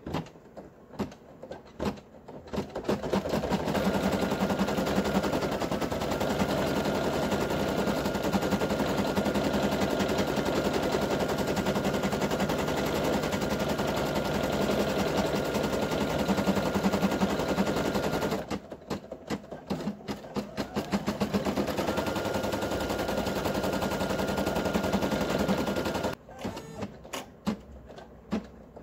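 Brother PE800 embroidery machine stitching: a fast, steady needle clatter with a thin whine. It drops to separate clicks a few times a second about two-thirds of the way through, speeds up again, and slows back to separate clicks near the end.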